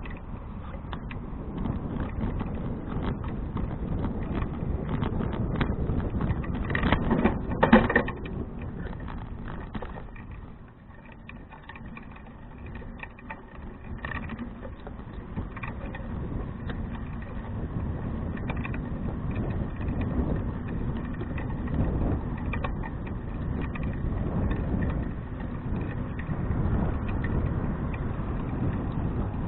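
Riding noise of a 2012 Fuji Touring bicycle picked up by a bike-mounted action camera: a low rumble of tyres and wind with many small rattling clicks, a few louder knocks about seven to eight seconds in, and a quieter stretch a little after ten seconds.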